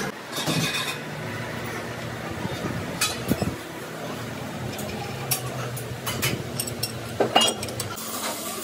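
Scattered metallic clinks and knocks as a drive shaft yoke is set into a lathe's four-jaw chuck and the jaws are tightened with the chuck key, with a sharper cluster of knocks near the end, over a steady low hum.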